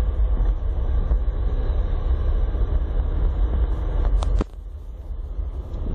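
Road vehicle running, with a strong low rumble of wind buffeting the microphone. About four seconds in there is a brief high squeak, after which the rumble drops away and it goes quieter for over a second.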